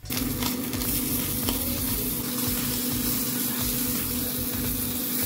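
Salmon fillet searing in a pan over high heat, a steady loud sizzle. A steady low hum runs underneath.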